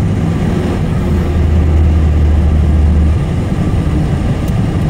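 Vehicle engine and road noise heard from inside the cab while driving: a steady low drone that shifts down in pitch about three seconds in.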